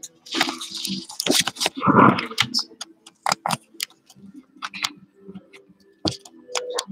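A run of irregular sharp clicks and taps, with a short voice sound about two seconds in, over a faint steady hum.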